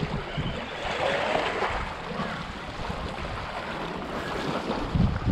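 Waves and rushing water, with wind rumbling on the microphone.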